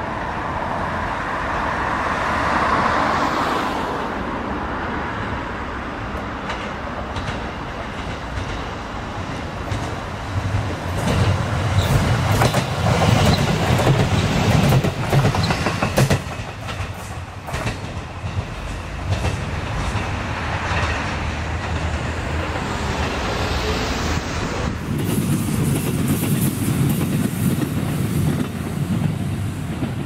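JR Kyushu KiHa 220 diesel railcar running past, its engine running and its wheels clattering over rail joints. It is loudest about halfway through as it passes close by, with a quick run of sharp clacks. Near the end another stretch of the railcar approaching follows.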